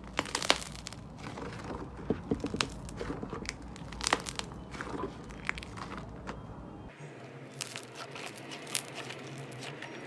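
Slime being squeezed and stretched by hand, giving irregular crackling pops and clicks.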